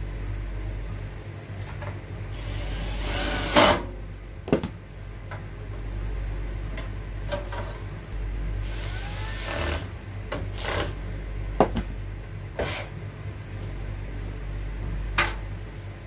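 Cordless drill/driver running in two short bursts, about 3 and 9 seconds in, driving screws as a microwave inverter board is fastened back in place. Sharp clicks and knocks of wire connectors being plugged in follow, over a steady low hum.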